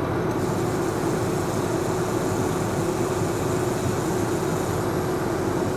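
Tractor engine running steadily, with a steady mid-pitched whine over the engine noise.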